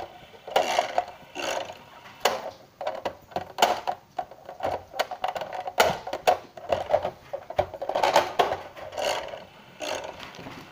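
Toy 'Bandit' one-armed-bandit slot machine being played, its lever mechanism and spinning reels giving repeated irregular clicking and rattling.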